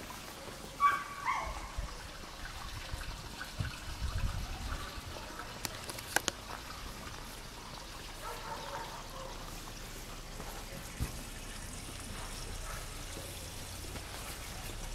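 Water trickling steadily into a stone-rimmed garden pool, with a short call about a second in.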